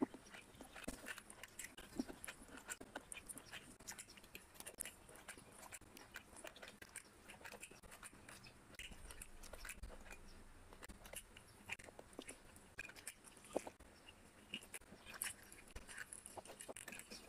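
Close-up eating sounds of a person eating biryani and meat by hand: fingers working the rice on the plate and mouthfuls being chewed, heard as many short, irregular wet clicks.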